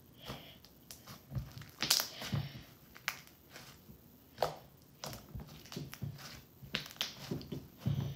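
Slime being worked by hand, with irregular squishes, clicks and crackling pops.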